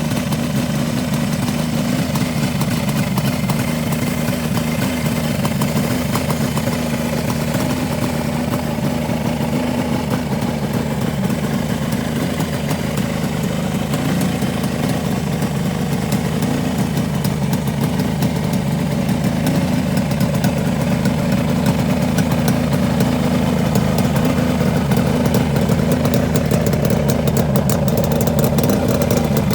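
Kawasaki Mach III 500SS three-cylinder two-stroke motorcycle engine idling steadily, a little louder in the second half.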